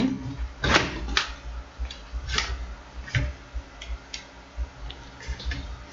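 Scattered light clicks and knocks from a laptop motherboard and its plastic chassis being handled and set in place, about half a dozen sharp taps spread over a few seconds, the strongest in the first half.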